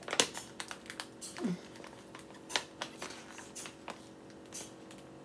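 Plastic candy bag of Ghirardelli chocolate squares crinkling and crackling in irregular short bursts as it is pulled and worked at, its seal glued shut.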